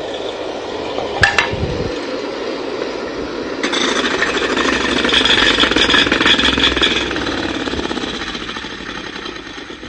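A heavy 40-pound gyroscope wheel, spun up to high speed, is being stopped, giving a rapid mechanical rattling noise. There is a click about a second in; the rattle grows louder about four seconds in and then dies away.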